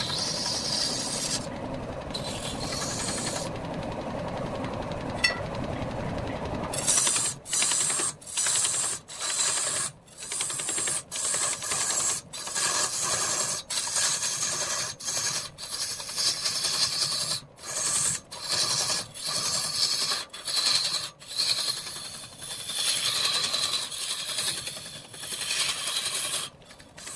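Hand-held turning tool cutting into a large wooden cylinder spinning on a lathe: a coarse scraping hiss of wood being peeled off as shavings. It runs unbroken for the first several seconds, then comes in strokes with short breaks about once a second.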